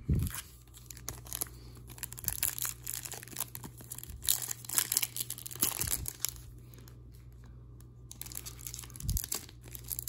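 Plastic wrapper of a hockey card pack crinkling and tearing as it is opened, mixed with cards being shuffled and set down on a table, in short irregular bursts with a quieter stretch around seven to eight seconds in.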